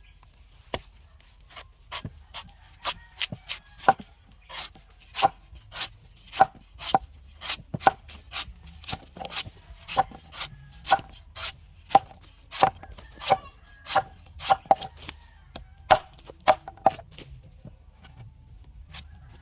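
A blade chopping into a young coconut: a long run of sharp strikes, about two a second, stopping a couple of seconds before the end.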